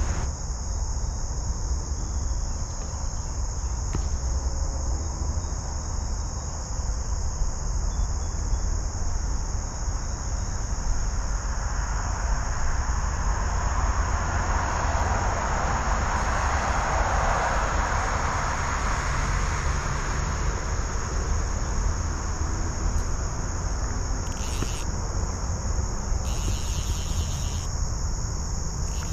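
Steady high-pitched insect chorus, a constant shrill drone, over a low rumble; a broad rush of noise swells and fades in the middle.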